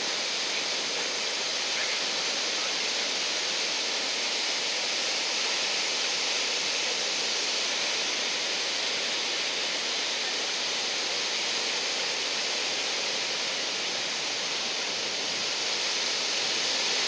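Ocean surf breaking and washing up the beach: a steady, even hiss with no single wave standing out.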